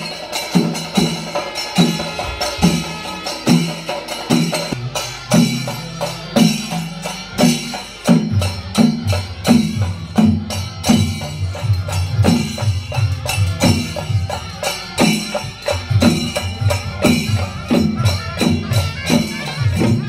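Chenda melam: a group of Kerala chenda drums beaten in a steady, even rhythm, with hand cymbals (elathalam) ringing over them. About eight seconds in, deeper drum strokes come in more strongly under the sharp stick strokes.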